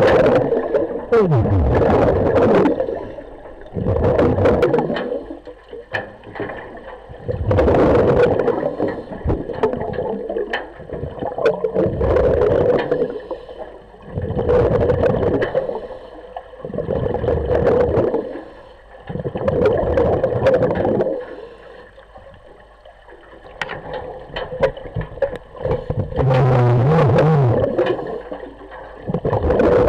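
Diver breathing underwater through a regulator: rhythmic rushes of air and bubbles about every two to three seconds, with quieter pauses between breaths.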